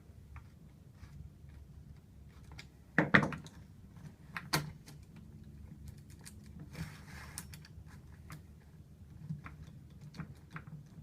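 Small chainsaw's side cover and guide bar being handled and seated over the tensioner pin: scattered light clicks and taps, a sharp knock about three seconds in, a smaller one about a second and a half later, and a short scrape near seven seconds.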